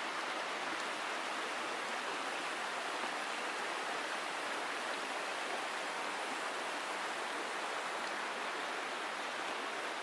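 Mountain stream running over rocks, a steady rushing of water.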